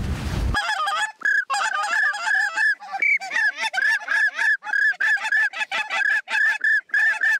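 Goose honking, starting about half a second in: a rapid, continuous run of short honks, several a second, each breaking from a lower note to a higher one.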